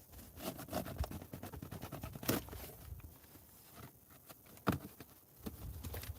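Scraping, rustling and clicking of packing tape, straps and cardboard being handled on a large shipping box, with two sharper knocks, about two seconds and just under five seconds in.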